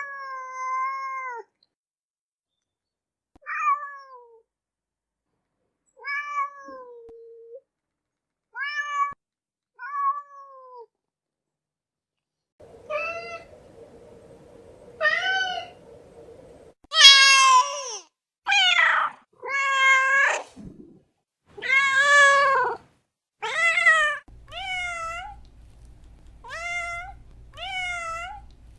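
Domestic cats meowing in a string of separate recordings: single drawn-out meows a few seconds apart at first, then louder meows about a second or two apart past the middle, and near the end quick short meows over a low hum.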